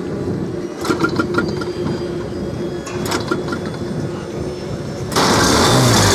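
Steady outdoor background with a few clusters of light clicks, then about five seconds in an RC plane's engine starts up and runs, louder.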